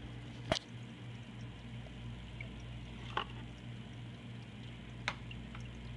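Hang-on-back aquarium power filters (an AquaClear 50 and an Aquatech 5-15) running: a steady low motor hum with water trickling and dripping. Three short sharp clicks sound about half a second, three seconds and five seconds in.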